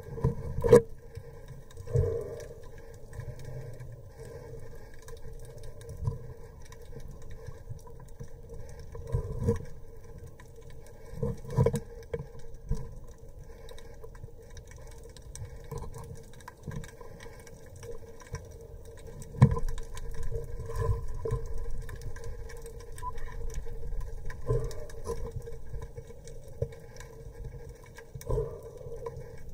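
Underwater recording: a steady mechanical hum with a low rumble, broken by several sharp knocks and short bursts of noise.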